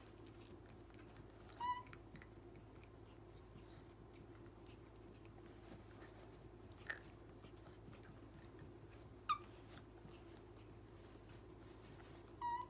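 Three short high squeaks from baby monkeys, about a second and a half in, a little past nine seconds and near the end, with one sharp click near seven seconds. Under them runs a faint steady hum with small wet mouth clicks.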